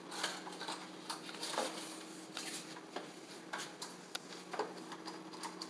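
Horizontal window blind clicking and rattling as it is handled, with irregular light clicks from its headrail and slats, over a steady low hum.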